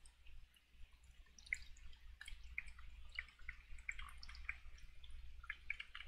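Faint, scattered light clicks and ticks from small objects being handled at a fly-tying desk, over a low steady hum.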